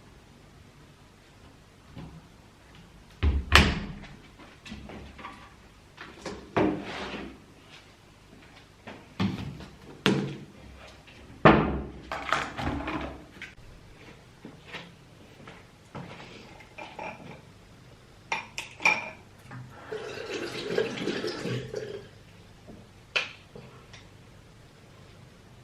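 A run of scattered knocks and clatters of household objects being handled and set down. About twenty seconds in comes a rushing noise lasting about two seconds.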